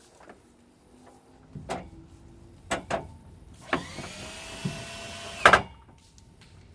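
A power drill runs for about a second and a half, its whine rising and then holding steady as it drives a screw, among several sharp metal knocks and clanks from handling stove parts; the loudest knock comes as the drill stops.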